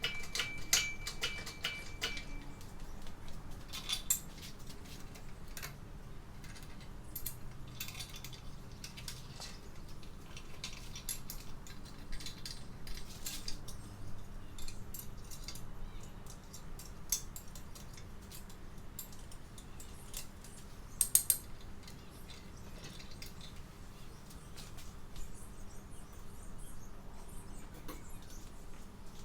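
Scattered light metallic clicks and clinks of hand tools and engine parts being handled, with a sharper cluster of clicks about 21 seconds in, over a faint steady hum.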